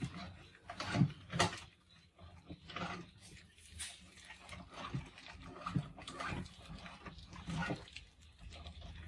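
A crowd of mice scrabbling and scurrying over a glass tank and its wire mesh: irregular scratches and light knocks from their claws and bodies, loudest about a second in.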